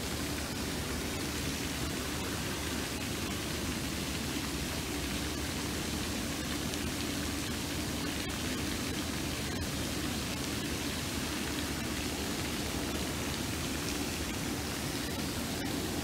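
Steady, unbroken rushing noise with no rhythm or pitch.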